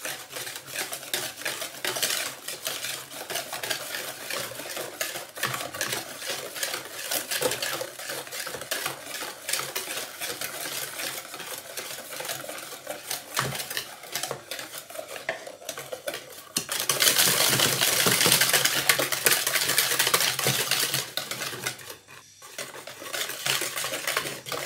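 Wire whisk beating eggs, sugar and oil in a plastic bowl: fast, continuous scraping and clicking of the wires against the bowl. The beating grows louder for about five seconds from around two-thirds of the way through, pauses briefly, then carries on.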